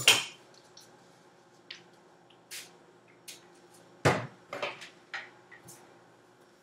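Objects being handled and set down on a table: a plastic spray bottle and hair styling tools. A sharp knock comes at the start and another about four seconds in, with lighter clicks and taps between.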